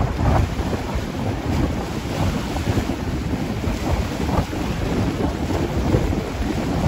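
Strong storm wind gusting steadily and buffeting the microphone, as a rumbling rush.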